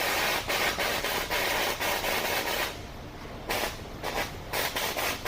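Oxyacetylene cutting torch burning with a neutral flame, its cutting-oxygen lever squeezed: a long loud hiss for the first couple of seconds, then after a short pause a quick run of about six short hissing bursts. A flame sputter when the cutting oxygen is added is, to the instructor, the sign of a dirty tip.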